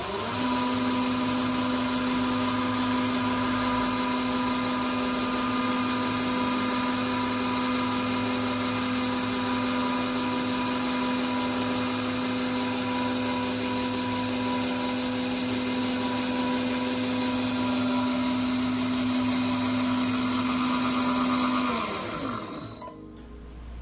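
Small metalworking lathe running steadily with an even motor whine while a cutting tool turns down the outside diameter of a brass chronometer wheel blank. Near the end the motor winds down with a falling pitch.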